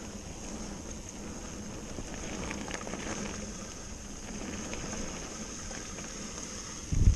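Canyon mountain bike rolling down a leaf-covered dirt forest trail: steady tyre and riding noise with a few light rattles in the middle, and a loud low thump near the end.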